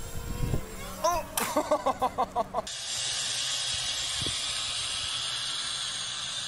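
A person laughing in a quick run of short pitched bursts. Then a steady, even hiss from a small white quadcopter's propellers as it flies low over the grass.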